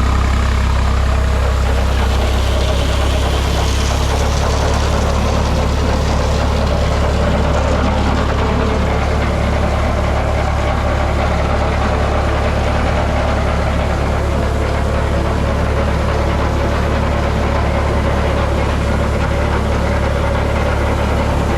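Tractor engine running steadily at a constant speed, with an even rushing noise over the low hum.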